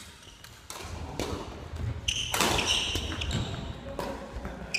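Badminton doubles rally: rackets strike the shuttlecock several times, with short high squeaks of court shoes on the gym floor and footsteps as the players move.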